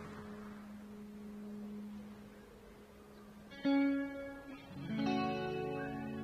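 Background music: a held low note slowly fading, then a chord struck about three and a half seconds in and another about a second later, both ringing on.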